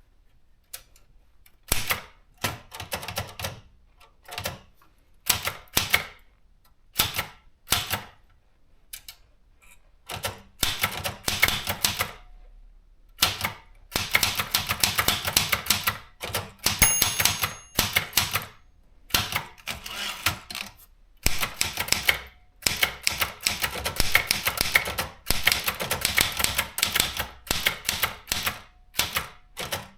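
Privileg JP 1 manual typewriter being typed on: runs of rapid key strikes in bursts of a second or two, with short pauses between them. A short ringing tone about 17 seconds in.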